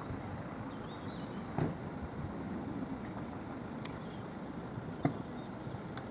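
Steady outdoor background noise with a few faint sharp clicks scattered through it.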